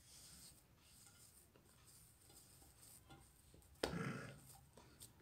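Faint rubbing and squishing of hands working a very soft shortbread dough in a glazed earthenware plate, with one dull thump nearly four seconds in that fades over about a second.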